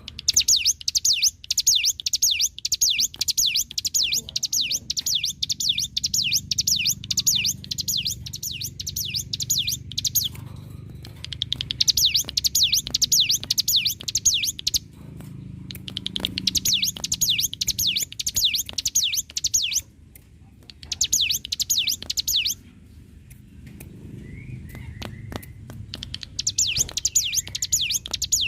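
Cigun (ciblek gunung) songbird singing its fast, rattling 'ngebren' song: long bouts of rapid, high repeated notes, several to the second, broken by short pauses. A low hum and faint clicks run underneath.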